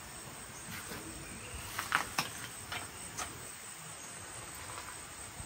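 Steady high insect chirring, typical of crickets, over an even hiss, with a few light clicks and knocks about two to three seconds in.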